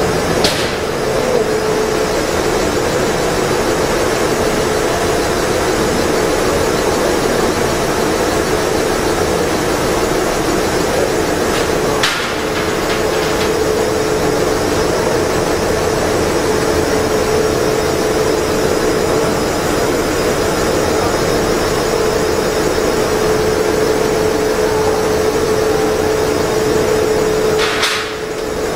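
TENZ TP-B-20L powder mixer running steadily with pink cosmetic powder churning in its trough: a continuous machine noise with a steady hum. The noise breaks off briefly with a click about twelve seconds in and again near the end.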